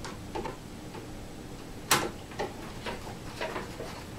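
A hand screwdriver tightening a self-tapping screw through cloth into a wooden plug in a PVC pipe end: a few light, irregular clicks and ticks, the sharpest about two seconds in.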